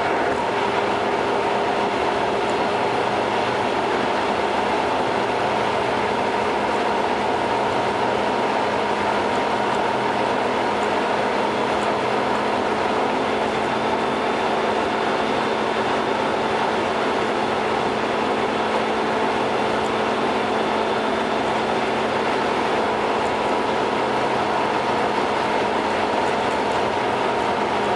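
Steady tyre-on-road and engine noise heard from inside a car cruising on an expressway, sped up to double speed. It runs evenly, with a few constant whining tones over the rush.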